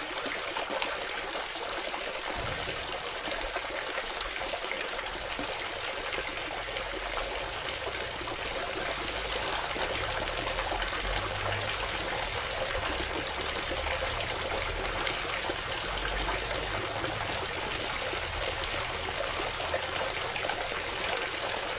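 Water from a homemade mini submersible pump pouring in a steady stream out of a small pipe spout onto the ground. Two short clicks, about 4 and 11 seconds in.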